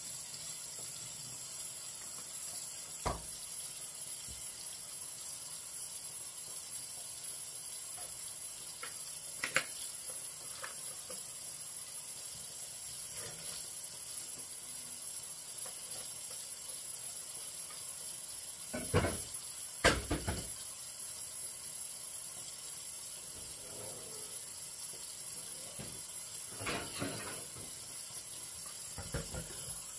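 Steady faint hiss with a few scattered knocks and clunks of bottles and dishes being handled at a stainless kitchen sink. The loudest two come close together about two-thirds of the way through.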